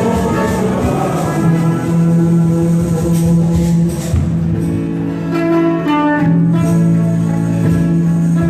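Instrumental music with long held notes under a changing melody.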